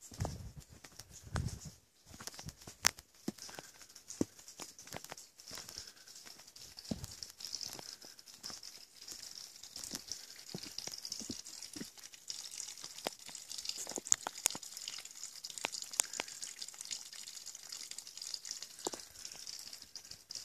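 Footsteps walking on a forest trail, with irregular crunches and scuffs of dry leaves and twigs underfoot. A steady high hiss runs underneath, stronger in the second half.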